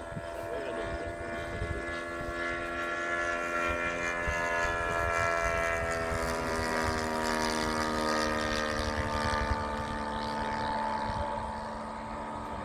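Radio-controlled Top Flite Bonanza model plane flying overhead, its OS FS-120 four-stroke glow engine running with a steady buzzing drone. The drone grows louder toward the middle and its pitch slides lower over several seconds, over wind rumble on the microphone.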